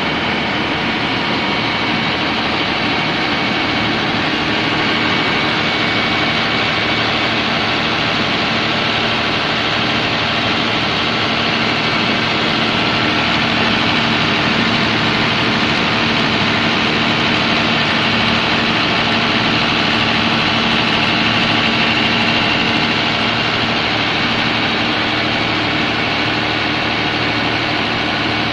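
Komatsu SA6D110 six-cylinder turbocharged diesel engine of an open-type 130 kVA generator set running steadily on test.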